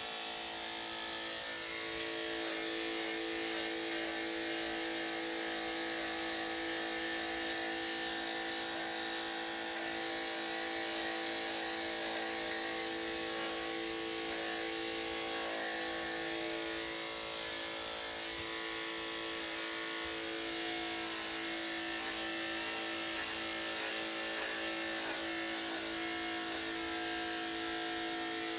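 Electric dog grooming clippers running with a steady hum while shaving a Shih-Tzu's coat.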